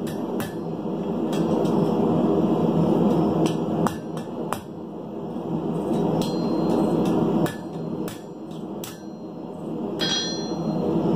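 Hand-hammer blows on red-hot steel held in tongs on an anvil, curling over the stinger of a forged scorpion bottle opener: single, irregular strikes about a second apart, the last one near the end ringing out. A steady rushing noise runs underneath.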